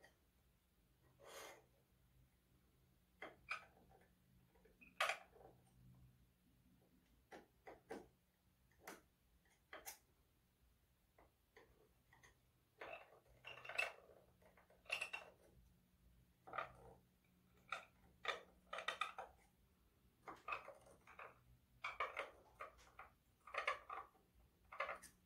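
Steel scribe scratching marking lines into a piece of aluminum plate as an outline is traced. It comes as short, irregular strokes, with brief pauses between them.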